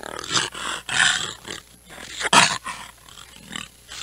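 Snow leopard giving a run of short, rough calls, four or so, the loudest about halfway through.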